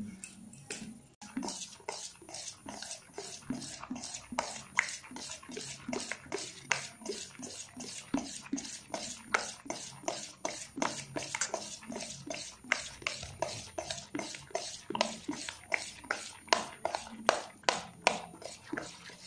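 A spoon beating thick semolina-and-curd batter in a steel bowl, knocking and scraping against the bowl about three times a second with a wet slapping of the batter.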